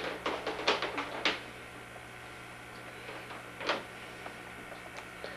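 A kitten scrabbling and pouncing at a cord on a vinyl floor: a quick flurry of scratchy clicks and rustles in the first second or so, and another short scrape just past the middle. A faint steady hum runs underneath.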